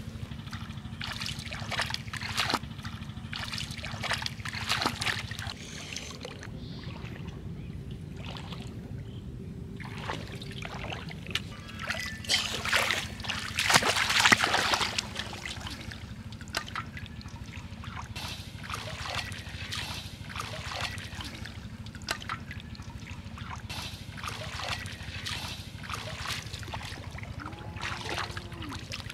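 Hands groping and splashing in shallow water, irregular sloshes and trickles, over a low steady rumble. The loudest run of splashing comes about halfway through, as a caught fish goes into a pot of water, and a wading foot sloshes through the water near the end.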